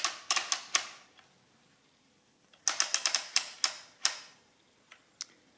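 Ratcheting clicks from a Summira S mechanical adding machine as its input wheels are pulled down by a finger to enter a number, each entry adding straight into the register. A few clicks come at the start, then a quicker run of about seven clicks in the middle, and two faint ticks near the end.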